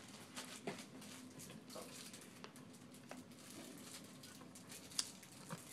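Faint, scattered light clicks and rustles of small things being handled, over quiet room tone.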